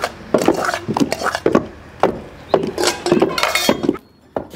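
Pestle pounding in a wooden mortar, a run of sharp knocks about two a second that drop away near the end.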